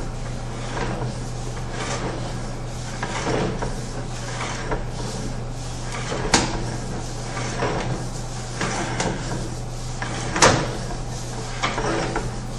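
Sewer inspection camera gear handled mid-run: a steady low hum under irregular rattling and knocking, with two sharp clacks, one about six seconds in and a louder one near ten and a half seconds.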